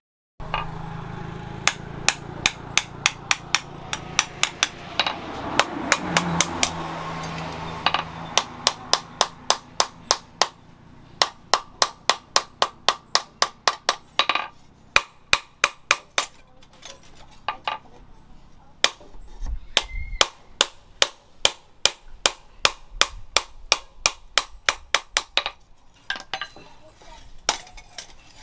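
Hand hammer striking red-hot steel rebar on a small post anvil while forging a knife blade: sharp ringing metal blows, about two to three a second, with a few short pauses.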